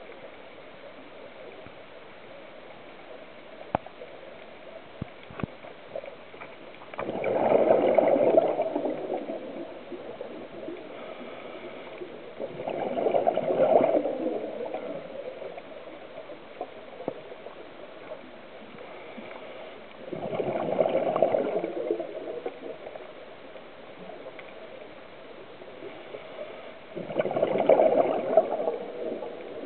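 Scuba diver breathing through a regulator: four bursts of exhaled bubbles, each about two seconds long, coming roughly every six to seven seconds over a steady underwater hiss. A few faint clicks come in the first seconds.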